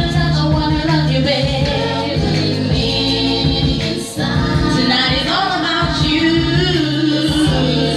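Music with singing: voices sing over steady bass notes and a regular beat, with a brief drop in level about four seconds in.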